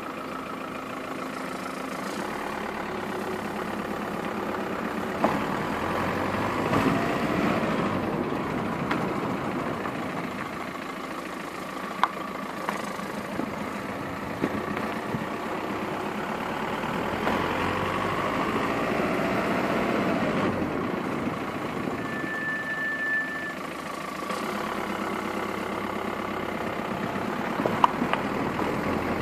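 VW Passat B6 1.9 TDI running, its diesel engine and tyre noise steady with a few sharp clicks. Roughly two-thirds through comes a brief, steady, high-pitched brake whistle, which the owner puts down to the pads, or just the pad-wear warning tab, starting to touch the disc.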